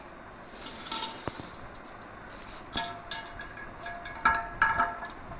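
Metal clinking and tapping: a tool knocking against metal plumbing fittings during a basin mixer tap change, a run of sharp clinks with a brief ring, starting about three seconds in. A short hiss comes about a second in.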